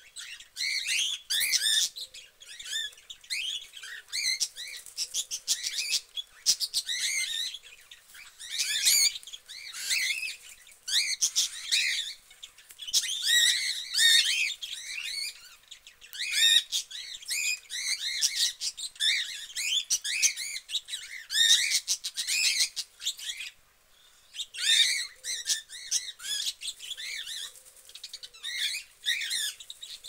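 Cockatiels chirping and calling: a busy stream of short rising and falling chirps, many in quick succession, broken by a few brief lulls.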